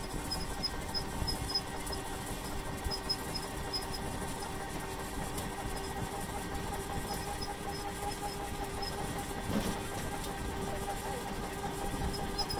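Outdoor street ambience dominated by a steady mechanical hum, with a faint high-pitched chirp repeating at regular intervals above it.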